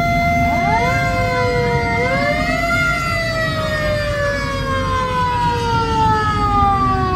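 Sirens sounding over a low rumble. One holds a steady high pitch while a second sweeps up to meet it, then from about three seconds in the pitch falls slowly and steadily, like a siren winding down.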